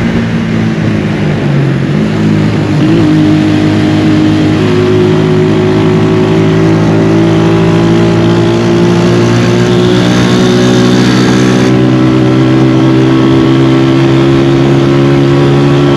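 Honda CG 125's air-cooled single-cylinder four-stroke engine running while the bike is ridden, heard from the rider's seat with wind noise. Its pitch shifts in the first few seconds, then holds steady.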